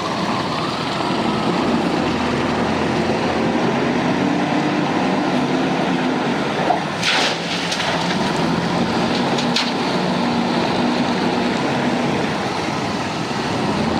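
JCB backhoe loader's diesel engine running steadily under work, with brief clattering knocks about seven and nine and a half seconds in.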